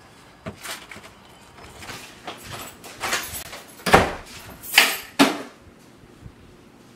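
Household handling sounds: a door being opened and shut, footsteps, and things being put down, with a run of sharp knocks and rustles that are loudest about four to five seconds in.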